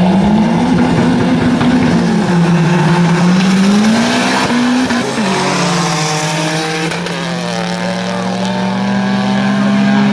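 Drag-racing cars accelerating hard down the strip: the engine note climbs, drops back at gear changes about two seconds and five seconds in, then holds at a steady pitch.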